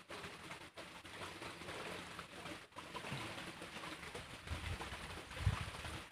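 Quiet creekside outdoor ambience: a steady hiss with faint bird calls. Low thuds of fishing-rod and line handling come in about four and a half seconds in, loudest near the end.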